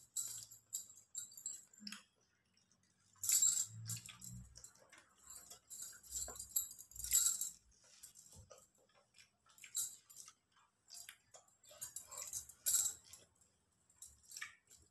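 Metal bangles jingling in short, irregular bursts as a hand picks fries off a crinkly paper wrapper, with a few soft low thumps.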